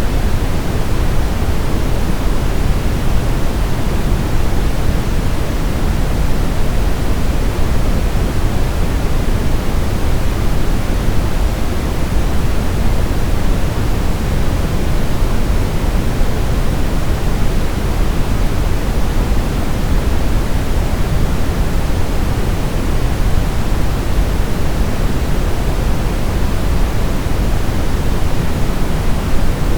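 Brown noise: a steady, even hiss-like rumble weighted heavily toward the bass, with no changes or events.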